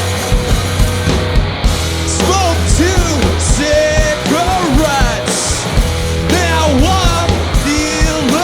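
Live band playing loud: steady low bass notes and repeated drum hits, with a melody line that bends up and down in pitch over them from about two seconds in.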